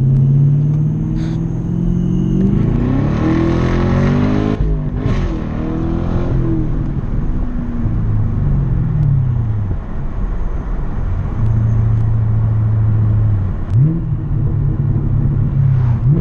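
2020 Camaro SS's 6.2-litre V8 pulling hard, its revs climbing for about two seconds before a brief break at the gear change, then falling away. It settles to a steady drone, with a quick rise in revs near the end.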